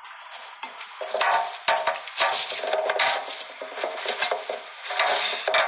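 Irregular bursts of rustling and scraping handling noise on a microphone. They start about a second in and come several times, with short gaps between them.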